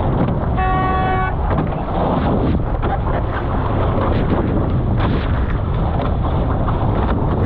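Wind buffeting the microphone and water rushing past the hulls of a Formula 18 catamaran under sail, with one short horn blast about half a second in, lasting under a second.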